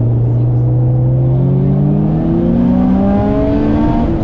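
Subaru Impreza WRX STI's turbocharged flat-four engine, heard from inside the cabin, accelerating under load. Its note holds steady for about a second, then rises steadily in pitch as the revs build. Wet-road tyre and rain noise runs underneath.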